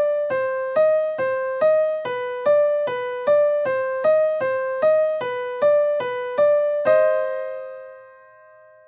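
Piano tones from an online virtual piano: C and D a whole step apart, clicked alternately about two and a half times a second. The last note near the end is held and rings out, fading away.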